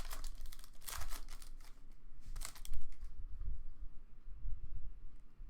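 Handling noise from trading cards and a foil card-pack wrapper: irregular crinkling and rustling with a few sharper crackles, as the next pack is torn open and its cards are pulled out and sorted.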